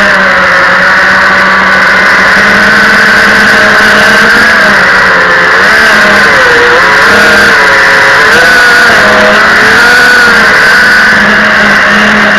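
FPV quadcopter's electric motors and propellers whining loudly, the pitch wavering up and down every second or so with throttle changes, as picked up by the drone's onboard camera.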